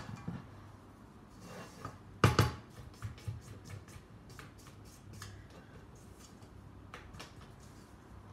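Silicone spatula scraping and tapping against a stainless steel mixing bowl of creamed margarine, with short scrapes and clicks and one louder knock about two seconds in.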